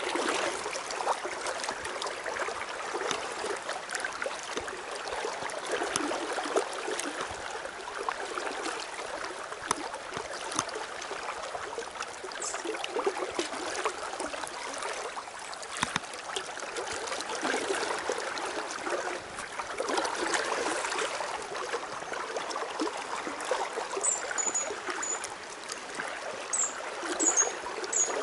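River water flowing and rippling steadily through a shallow riffle, with a few brief high chirps near the end.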